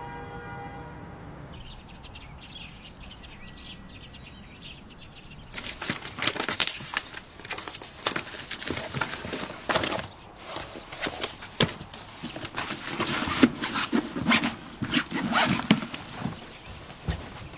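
Birds chirping faintly for the first few seconds. Then, from about five seconds in, an irregular run of clattering, knocks and rustling as objects are handled on a desk.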